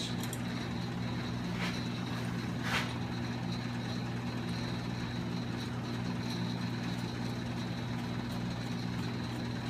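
Steady low machine hum with a faint high whine over it. Two faint clicks come about a second apart, around two seconds in.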